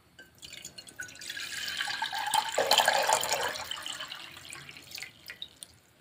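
Water poured into an empty metal saucepan, splashing against the bottom. The pour grows louder for about three seconds, then tapers off into a few last drips and splashes before stopping near the end.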